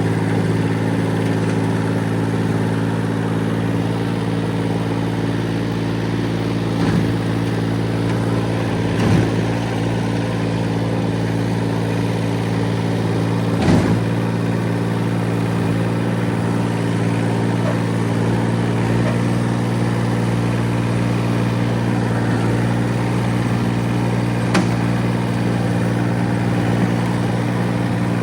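Kubota machine's engine running steadily at a constant speed, with a few short knocks now and then.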